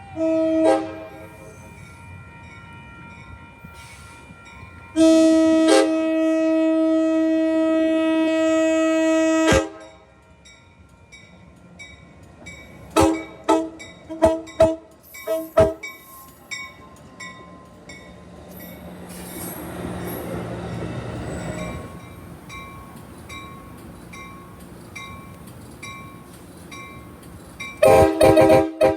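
Amtrak Surfliner cab car's air horn sounding a series of blasts: a short one at the start, a long blast of about four and a half seconds, a quick run of five short toots, then a pair of blasts near the end. Midway there is a swell of rumbling noise from the train that rises and fades.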